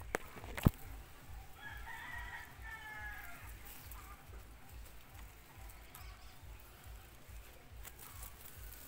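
Two sharp knocks just at the start, the second much louder. Then, about a second and a half in, a rooster crows once for about a second and a half.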